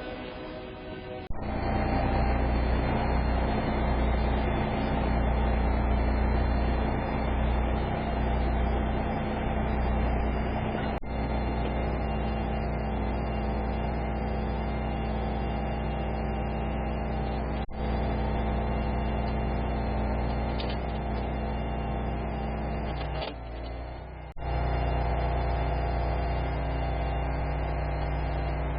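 A work truck's engine running steadily at a constant pitch, broken off abruptly a few times.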